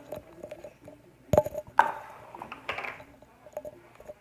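Slime being handled close to the microphone: two sharp sticky clicks about a second and a half in, then about a second of crackling, with small pops scattered around them.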